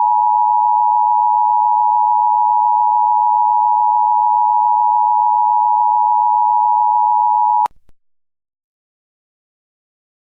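Emergency Alert System attention signal: a loud, steady two-tone alert beep held unchanging for about seven and a half seconds, then cut off abruptly.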